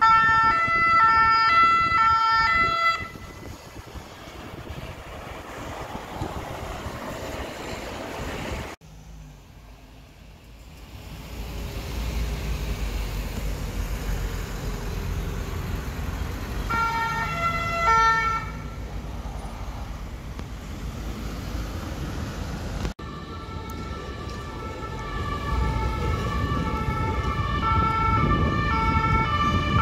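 French two-tone emergency-vehicle sirens alternating between two pitches, over road-traffic and engine rumble. The siren is loud for the first three seconds, returns briefly about two-thirds of the way in, and sounds steadily through the last few seconds as traffic noise builds.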